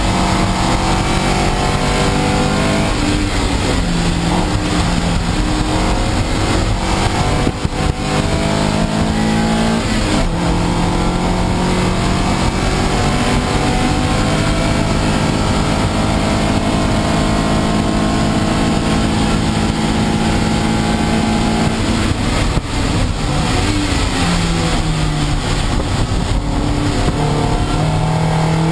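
Toyota MR2 race car's mid-mounted engine heard from inside the cabin, revving up through the gears under hard acceleration. The pitch climbs and then drops back at each of several gear changes.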